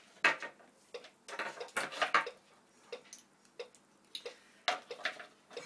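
Homemade four-piston solenoid engine ticking as its magnet plungers and contact points work, a run of sharp clicks that comes thick in the first half and then slows to about two a second.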